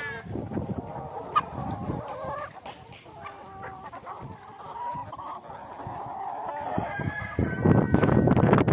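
Flock of hens and roosters clucking and calling while pecking at scattered wheat. Near the end, a louder, noisy rush comes in over the calls.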